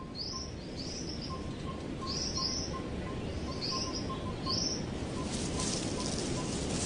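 Forest ambience: a bird giving a run of short, high chirps, often in pairs, over a faint regular pipping. About five seconds in the chirps stop and a high hiss swells up.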